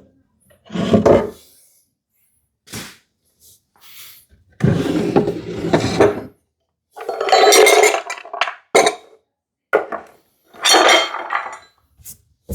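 Wooden drawers being slid out of a cabinet, scraping along their wooden runners, with knocks and clinks as they and things in them are handled. There are several separate sliding sounds of a second or so each, and short knocks in between.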